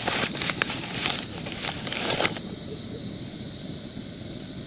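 Crinkling, crackling handling noises with sharp clicks for a little over two seconds, then they cut off suddenly and a steady faint hiss with thin high tones remains.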